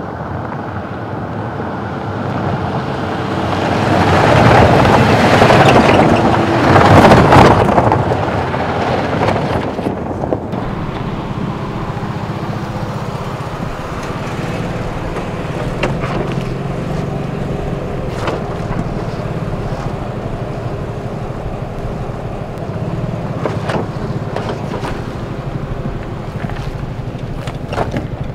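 Jeep SUVs driving on a dirt trail, engines running. One vehicle passes close by about four to eight seconds in, where the sound is loudest, and after that the engines run on steadily with a few short clicks.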